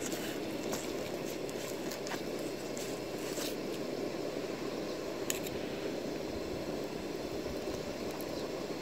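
Steady rushing background noise, with a few faint clicks and scrapes of knife blades working through a fish fillet on paper. The clearest click comes about five seconds in.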